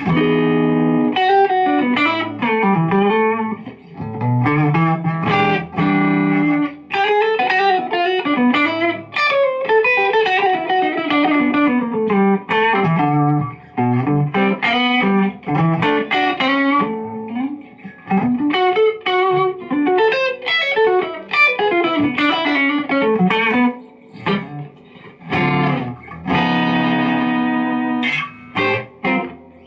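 Custom-built electric guitar played solo: strummed chords and runs of single notes with short pauses. It is a tone test of the guitar fitted with a 0.33 µF paper-in-oil tone capacitor in place of an Orange Drop, meant to take some of the sharpness off its sound.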